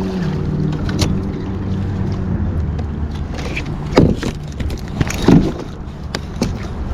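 A steady low motor hum that drops in pitch early on and fades away after about two and a half seconds, with scattered knocks and clatter of gear against a kayak.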